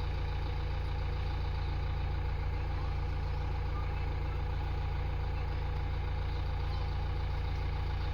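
A heavy diesel engine running steadily at low revs, a constant low rumble with no change in speed.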